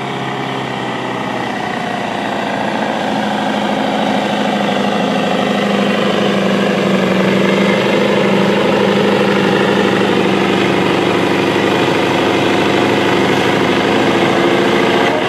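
Scania 142H truck's V8 diesel engine running flat out under load as it drags a pulling sled, a steady heavy drone that grows louder over the first several seconds and then holds.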